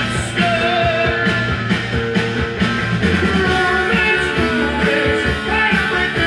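Rock music with a steady beat playing from a vinyl record on a Dual 1241 turntable.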